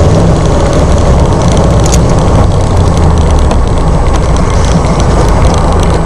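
Chevy 283 small-block V8 in an S10 pickup running under way, heard from inside the cab as a loud, steady low drone. The engine is running with its fuel pump screen clogged.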